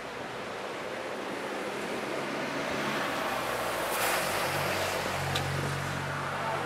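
Road traffic passing over a bridge: a steady rush of tyre noise that swells about four seconds in. From there a heavy vehicle's low engine hum builds as it goes by.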